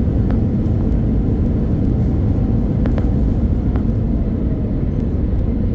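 Steady low rumble of an airliner, with a few faint clicks, around three seconds and near four seconds in.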